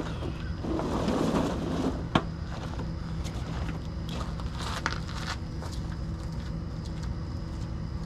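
Hand tools clicking and scraping against metal during starter removal on a pickup truck, with one sharp click about two seconds in, over a steady low hum.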